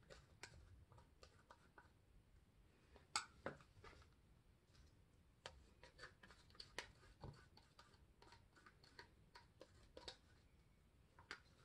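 Faint, scattered clicks and taps of a stir stick against small paint cups and a measuring cup as acrylic paint is scraped out and layered into the cup.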